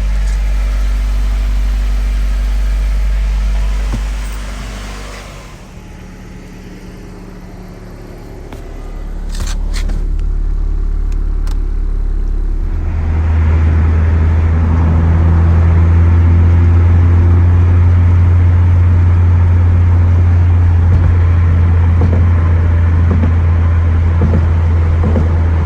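Toyota Altezza SXE10's 3S-GE four-cylinder engine running, a steady low drone. It eases off about five seconds in, with a few clicks, then comes back louder and holds steady from about halfway.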